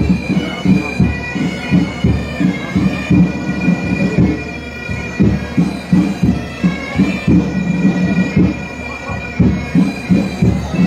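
Pipe band bagpipes playing a slow melody over their steady drone, with regular low drum beats under it.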